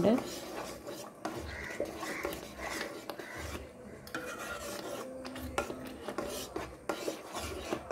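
A spatula stirring and scraping thick cornflour halwa around a nonstick pan: repeated rasping strokes against the pan's bottom and sides.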